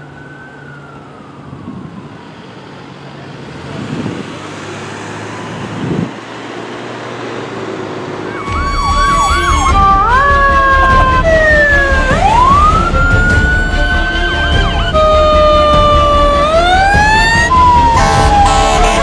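Fire engine sirens. At first an electronic siren is faint, wailing slowly up and down over traffic noise and fading. About eight and a half seconds in, much louder sirens start suddenly: a quick yelp, then several wails sweeping up and down and jumping between pitches.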